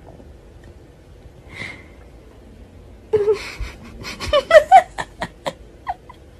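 A woman's breathy, wheezy laughter: a run of short laughing pulses starting about three seconds in and trailing off before the end.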